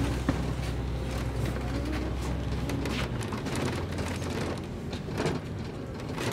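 City bus in motion, heard from inside on the upper deck. There is a low engine hum, with tyre and road noise and the light rattling of the bus body. The deepest part of the engine note drops away about three seconds in, and there is a sharp click just after the start.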